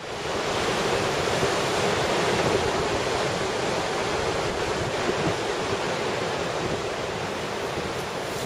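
Steady rush of sea surf with wind, fading in at the very start.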